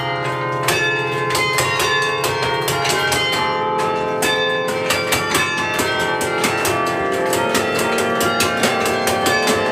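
Domtoren carillon bells played from the baton keyboard: a fast, steady run of struck bells, many ringing on over one another as the melody goes.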